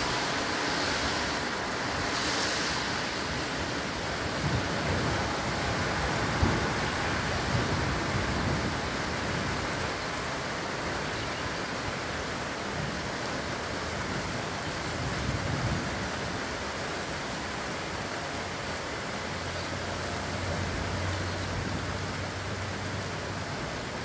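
Continuous storm ambience over a city: a steady wash of rain and wind. Low rumbles swell up a few times, and a steady low hum sounds for a few seconds near the end.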